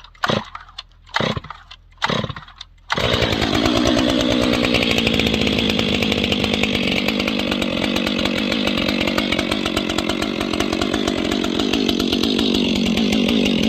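Cold start of a Stihl 500i two-stroke fuel-injected chainsaw with a modified, de-baffled muffler. The starter rope is pulled three times, the engine catches about three seconds in, and it then runs steadily while warming up, its pitch wavering slightly.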